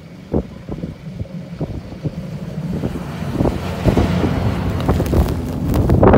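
Motor grader's diesel engine plowing snow, growing louder as it comes up and passes, with a rush of thrown snow and wind buffeting the microphone.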